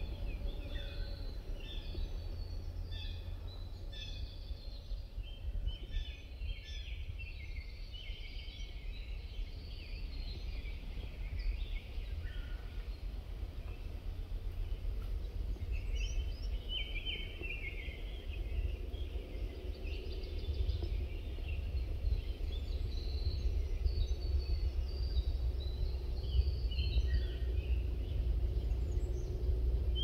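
Woodland ambience: several small birds chirping and singing in short phrases, scattered throughout, over a steady low rumble.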